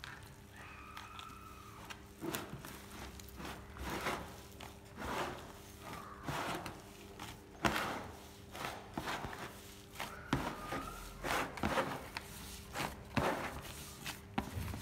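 Gloved hand kneading and squishing a wet homemade play dough mixture of flour, salt, oil and water in a plastic bowl, in uneven soft squelching strokes about one or two a second.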